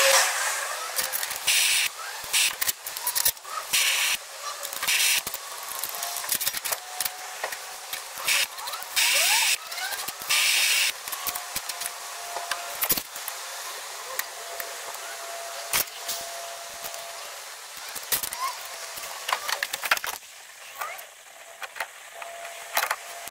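Small handheld gas torch hissing while it heats a brass joint for soldering, in repeated louder bursts of hiss about half a second to a second long. It goes quieter a few seconds before the end.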